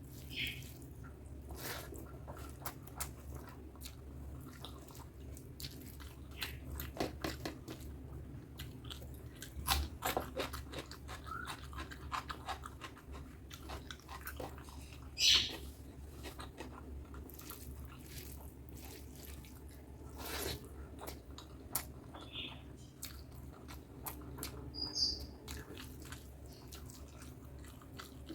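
Close-miked chewing and eating sounds of butter chicken with rice: wet mouth clicks and smacks scattered irregularly, the loudest a sharp one about halfway through, over a steady low hum.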